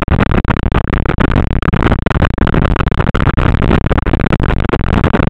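Kitfox light aircraft's engine and propeller running close to the microphone, a loud, harsh steady noise broken by frequent brief dropouts.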